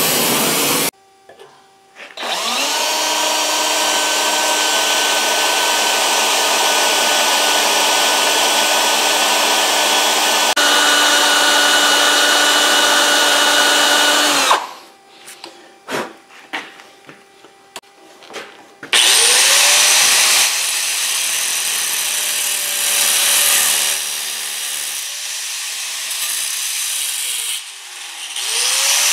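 A cordless drill spins up about two seconds in and runs steadily for about twelve seconds, boring a stop hole at the end of a crack in a cast iron exhaust manifold. A few seconds of handling clicks follow. Then an angle grinder starts and grinds a V-bevel into the crack, its speed dipping and picking back up a few times.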